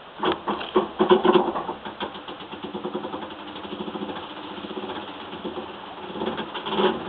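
Samsung washing machine making a strange fast rattling noise mid-cycle. It is loudest in the first two seconds, then settles into a steady rapid pulsing and builds again near the end. The noise is intermittent, turning up in some cycles and not others.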